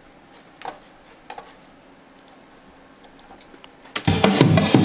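A few faint clicks over a low steady hum, then about four seconds in a recorded music track suddenly starts playing back loudly in the studio.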